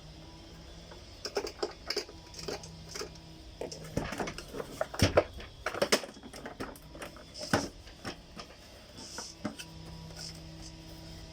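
Irregular clicks and knocks of a vacuum cleaner's plastic housing and parts being handled and pried apart during disassembly, busiest in the middle and thinning out near the end.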